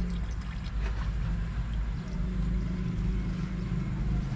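Old desi copy of a Ruston stationary single-cylinder diesel engine running steadily, turning its flywheels and belt drive.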